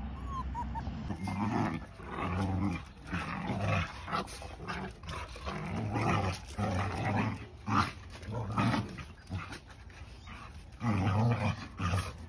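Several dogs play-fighting, growling and snarling in irregular repeated bursts.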